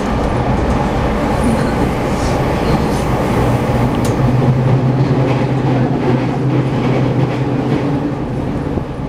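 JR East E217 series electric commuter train running, heard from inside the passenger car: a steady rumble of wheels on rail with a low hum that is strongest in the middle, and a few brief clicks.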